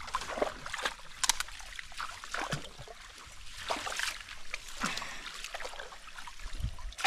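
Shallow pond water splashing and sloshing in irregular small bursts, from people wading and working a fishing net.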